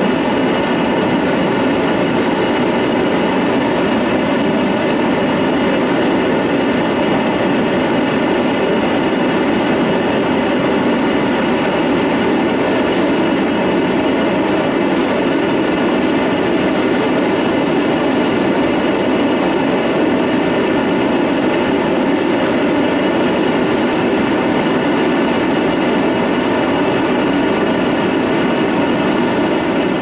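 Homemade tube-type propane burner running at full gas, a loud steady roar of burning gas. It is a first test firing, not yet tuned: the cone and the orifice position still need tweaking.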